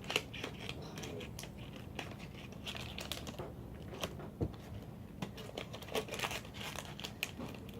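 Things being handled: light crinkling and rustling with scattered small clicks and taps.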